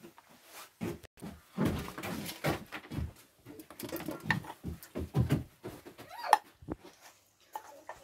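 A spoon scraping and knocking inside a wooden mortar as papaya salad is scooped out onto a plate: irregular soft knocks and scrapes.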